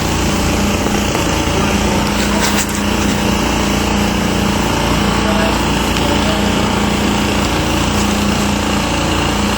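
A small engine or motor running steadily, with a low hum that comes and goes every second or two.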